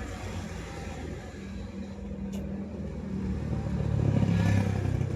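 Road traffic at an intersection: a steady low drone of vehicle engines idling and moving. About four seconds in, a vehicle passes close and the sound swells, then eases off.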